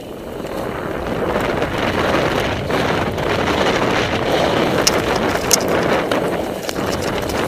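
Wind rushing over the camera microphone, mixed with the hiss of snow under a rider going fast downhill. The rush starts suddenly, builds over the first second or two and holds steady.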